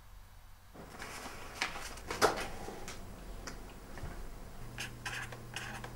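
Scattered light clicks and taps of small objects being handled, with one sharper knock about two seconds in and a quick run of clicks near the end.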